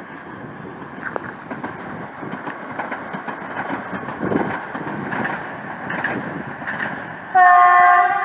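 Train running through a level crossing, its running noise growing louder with wheels clicking over the rail joints. Near the end, a loud, steady horn blast of about a second.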